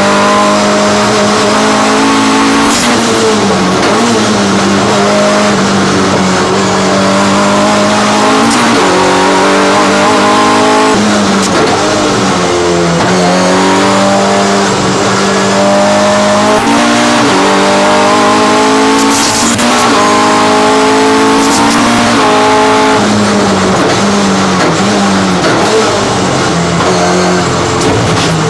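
Onboard sound of a BRL Light race car's engine running hard, heard from inside the cockpit. Its pitch climbs and drops back again and again with the revs.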